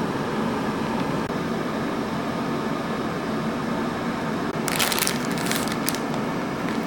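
Cook Essentials air fryer running with a steady fan whir. About five seconds in comes a brief burst of crackling and rustling clicks.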